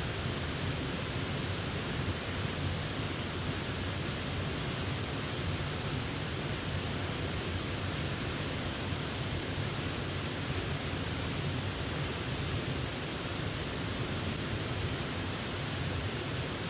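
Steady rushing of a waterfall: an even, unbroken roar of falling water with no changes.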